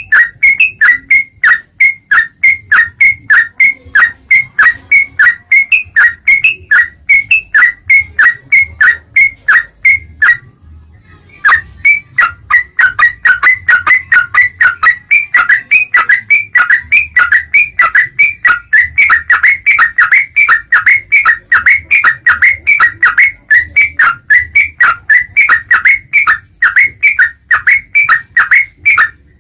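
Yellow-vented bulbul (trucukan) song: a fast, unbroken run of sharp chirping notes, about three or four a second, with a pause of about a second and a half near the middle.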